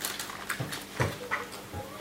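Foil-lined plastic takeaway container being handled and lifted: light crinkles and a few separate soft clicks.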